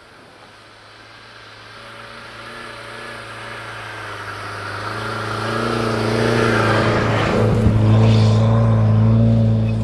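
UAZ Patriot 4x4 driving through deep snow toward and past, its steady engine note growing louder as it approaches and loudest near the end, with snow churning and spraying from the tyres.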